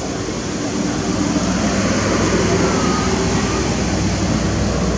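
A motor engine running steadily, growing louder over the first second or two and then holding level.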